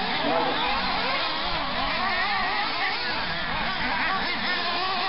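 Several nitro-powered RC off-road buggies racing, their small engines revving up and down in overlapping, wavering whines.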